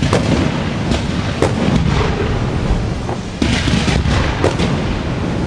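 Aerial fireworks display: repeated sharp bangs of bursting shells over a continuous low rumble, with a brief hissing rush about three and a half seconds in.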